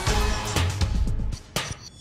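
Background music with a beat and deep bass, dropping away briefly near the end.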